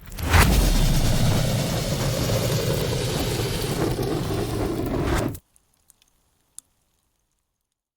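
Fire sound effect: flames catching with a sudden burst, then burning with a steady, rumbling rush for about five seconds before cutting off abruptly. One or two faint crackles follow.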